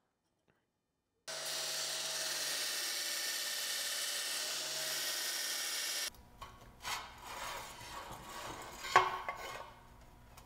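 Belt grinder grinding clearance into a thin steel sheet-metal part: a steady hiss lasting about five seconds that cuts off abruptly. Then scattered clinks and knocks of the steel pieces being handled on a steel welding table, the loudest knock about nine seconds in.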